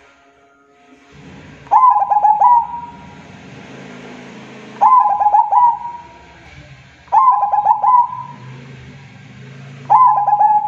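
Zebra dove (perkutut) singing: four cooing phrases about every three seconds, each a quick run of stuttering notes ending in a held note. A faint low hum runs underneath.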